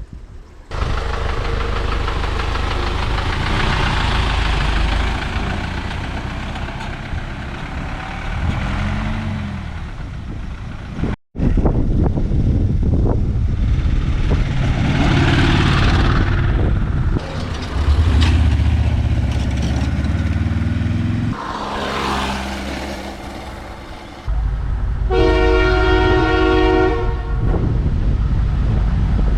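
Train running through a level crossing with a loud, steady low rumble, in several abruptly joined stretches. Near the end its horn sounds one steady chord for about two seconds.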